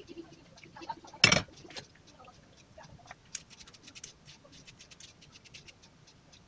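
Small clinks of a metal tea strainer and ladle against a drinking glass while a hot spiced drink is strained into it: one sharp knock about a second in, then a run of light ticks.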